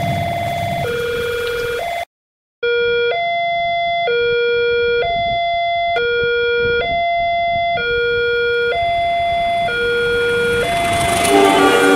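Railroad crossing alarm sounding, an electronic two-tone signal alternating between a low and a high tone about once a second. It cuts out for half a second about two seconds in, then starts again as the barrier comes down. In the last few seconds the rushing noise of an approaching train builds under it.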